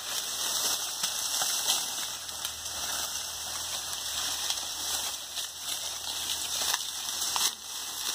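Dry sugarcane leaves and stalks rustling and crackling steadily as someone pushes through a dense cane stand, with many small snaps and crackles throughout.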